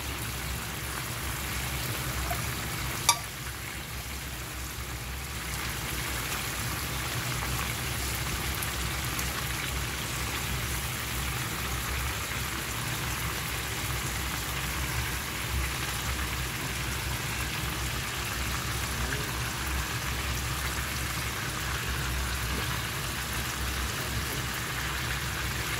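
Soy-sauce glaze bubbling and sizzling in a frying pan on a gas burner: a steady crackling hiss. A single sharp click about three seconds in.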